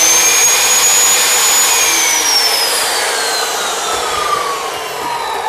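Bosch GCO 220 abrasive cut-off saw's 2200 W motor and 355 mm wheel spinning free with a high whine, with no cut. About two seconds in it begins winding down, the pitch falling steadily to the end.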